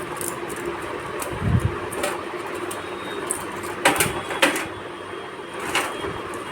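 Scattered sharp clicks and a low thump of hands handling and freeing power-supply cables in a PC case, over a steady background hiss.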